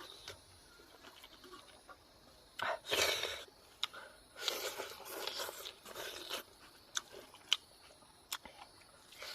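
Close-up eating sounds: chewing in noisy bursts, the loudest about three seconds in and another run from about four and a half to six seconds, with scattered sharp clicks in between.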